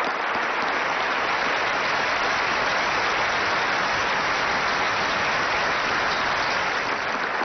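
A large seated audience applauding, a dense, even clapping held at a steady level.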